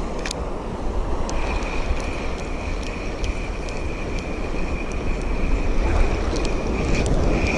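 Breaking surf and wind buffeting the microphone, a dense steady rush. About a second in, a steady high-pitched whine starts and runs on.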